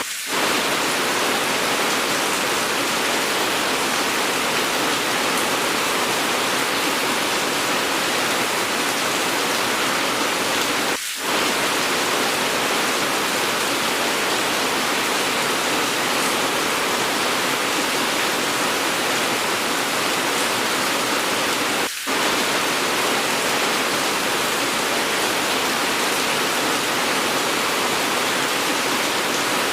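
Steady, heavy rain falling, a continuous even hiss. Twice the sound briefly dips for a moment, at the seams of the edited rain track.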